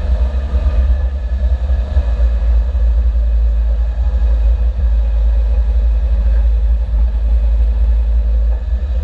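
A car on the move: a steady, loud low rumble of engine and road noise, with no clear change in revs.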